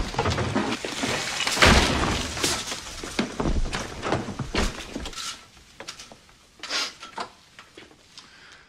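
A rapid series of crashes and knocks with something breaking, loudest about two seconds in, then thinning to a few scattered knocks.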